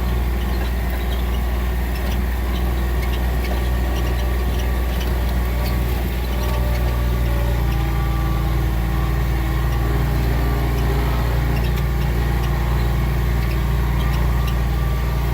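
A vehicle's engine running steadily with a low rumble, heard from inside, with light scattered rattles.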